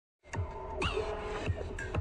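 Electronic title music that starts after a brief silence, about a quarter second in, with gliding tones that swoop down and up and sharp clicks.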